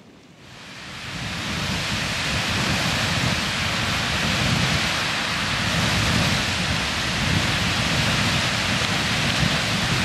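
Beehive Geyser erupting: a steady rushing noise of water and steam, like heavy rain, that builds up over the first second or so and then holds steady.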